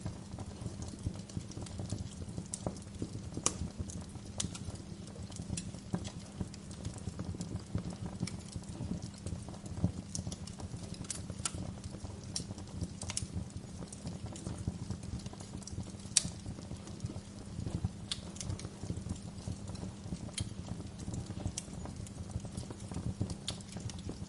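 Wood fire in a fireplace crackling: sharp pops and snaps come irregularly over a steady low rumble of burning, with a few louder pops standing out.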